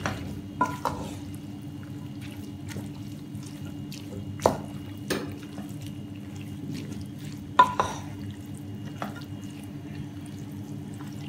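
A wooden spatula stirring and tossing cooked pancit canton noodles in a pot, with a few sharp knocks of the spatula against the pot, loudest about four and a half and seven and a half seconds in. A low steady hum runs underneath.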